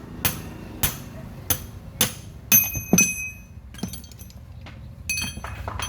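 Hammer blows on metal, steady at under two a second, then two louder strikes that ring with a bright metallic tone, and another ringing strike near the end.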